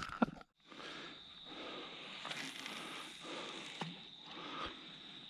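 Faint outdoor background: a low even hiss with a steady thin high-pitched tone and a few small soft knocks, after a brief drop-out near the start.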